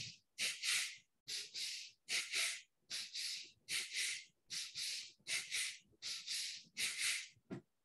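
Forceful, audible breaths in Khanda Pranayama, each breath split into two quick strokes. About nine of these two-part breaths come at a little over one a second, and the last one is shorter.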